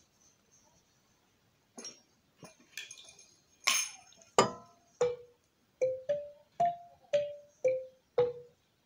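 A short percussion interlude: a few sharp strikes, then about seven struck notes on a small pitched percussion instrument of the xylophone kind, stepping up in pitch and back down, each ringing briefly.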